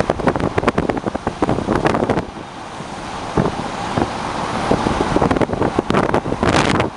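Strong hurricane wind gusting against the microphone, crackling and buffeting in the first two seconds, easing into a steadier rush, then buffeting again near the end.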